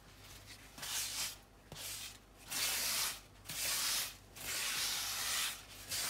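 Folded paper towel rubbed in repeated strokes over an oiled cast iron Weber skillet, about one stroke a second starting about a second in, spreading vegetable oil over the surface to season the pan.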